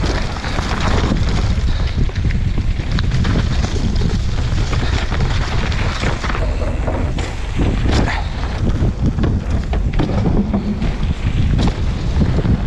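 Mountain bike descending a dirt and gravel trail at speed: steady wind rush on an action camera's microphone, tyres rolling over loose ground, and frequent short knocks and rattles from the bike over bumps.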